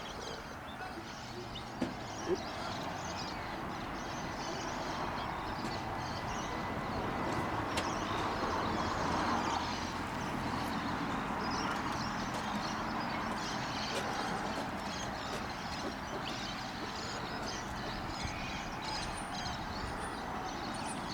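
Outdoor ambience: birds chirping and calling over a steady rushing background noise that swells and fades around the middle.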